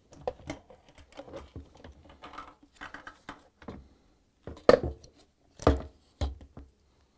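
Plastic dishwasher sump and circulation pump assembly clicking, rattling and knocking as it is worked free of the base and handled, with a few louder knocks in the second half as it is set down on the dishwasher.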